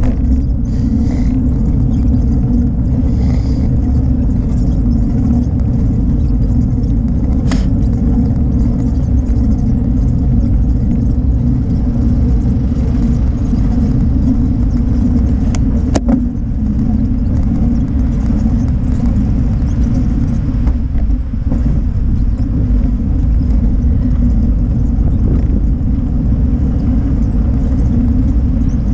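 Steady low rumble of a moving bicycle: wind buffeting and road vibration on the bike-mounted camera as it rolls along the road. Two sharp knocks, about a quarter of the way in and just past halfway.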